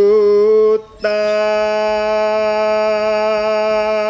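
Male voice singing a Javanese kidung (sung mantra): a short note, then one long, very steadily held note starting about a second in.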